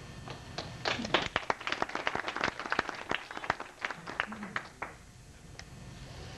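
Audience applause: many hands clapping, starting about a second in and dying away about five seconds in.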